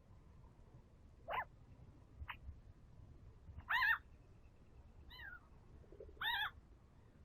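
An animal calling five times in short, pitched, mew-like cries about a second apart, the loudest about four seconds in and near the end.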